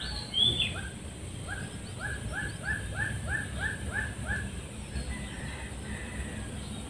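An animal calling, heard as a dog's yelps: a higher call at the start, then a run of about nine short yelps, roughly three a second, that stop after about four and a half seconds.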